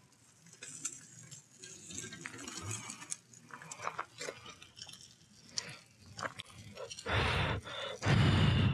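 Steel tongs clicking and scraping against a cast-iron skillet as a piece of bacon frying in it is pulled apart, with a faint sizzle. Near the end come two loud bursts of rushing noise, each under a second.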